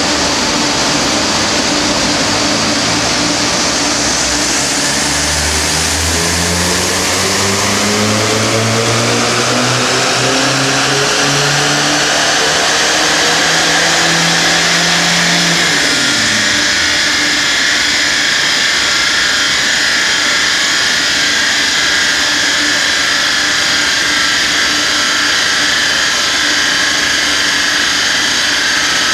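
Tuned Audi A4 1.9 TDI (AFN) four-cylinder turbodiesel doing a full-throttle pull on a chassis dynamometer. The engine note rises steadily for about ten seconds, then the revs drop quickly about halfway through as the throttle is lifted. A large cooling fan whooshes steadily throughout.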